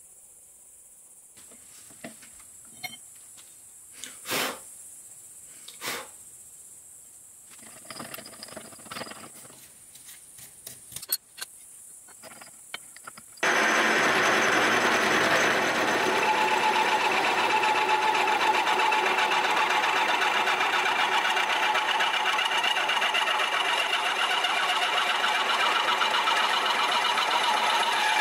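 Milling machine with an indexable face mill taking a facing cut across a clamped metal plate: a loud, steady cutting noise that starts suddenly about halfway in. Before it there is a quiet stretch with a few scattered short knocks and clicks.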